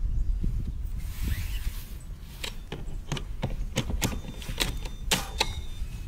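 Front bumper of a Mammotion LUBA robot lawn mower being pushed into place on the mower's front: a quick run of sharp plastic clicks and knocks through the middle seconds, over a low steady rumble.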